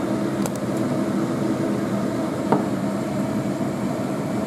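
Steady mechanical hum, with a faint clink about half a second in and a sharper one about two and a half seconds in, as a metal ladle knocks against a glass jar.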